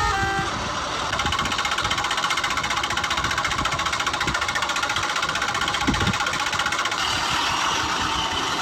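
An engine running steadily with a fast, even rattle.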